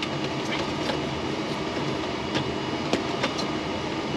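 Light clicks and rattles of speaker wire and plastic dash trim being handled as the wire is fed through, over a steady background hiss.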